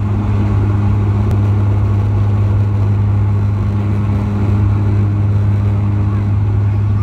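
Bombardier Q400 cabin noise beside the wing: the Pratt & Whitney PW150A turboprop and its six-bladed propeller running with a steady low drone and a fainter hum an octave above, as the aircraft rolls on the runway.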